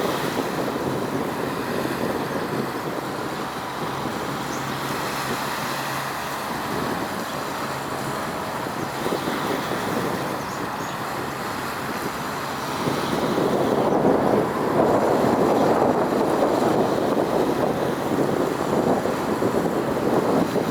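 Steady road traffic rumble mixed with wind on the microphone, growing louder about two-thirds of the way through.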